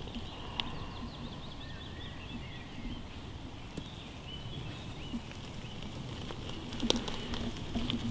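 Forest ambience with birds chirping and trilling in the background, and the light footsteps and rustling of a small dog moving over the forest floor. A sharp tap sounds about seven seconds in.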